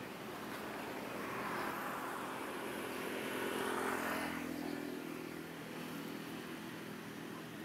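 A motor vehicle passing by. Its engine noise swells to a peak about four seconds in, then fades.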